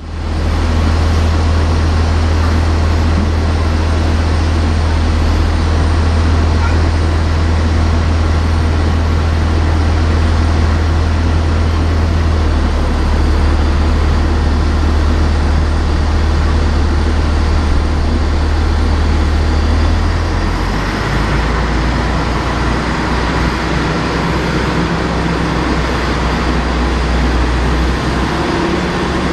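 Boeing 787-8 airliner on the apron during pushback: a steady deep drone with a broad rushing noise over it. The low tone shifts about 20 seconds in.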